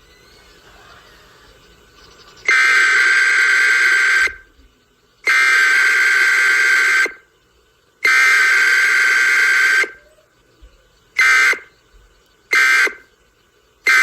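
Emergency Alert System digital data tones: three loud buzzing bursts of about two seconds each, then three short bursts a little over a second apart.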